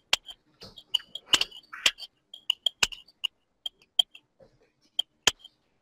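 Irregular clicks of typing on a computer keyboard, a few keystrokes a second with short pauses.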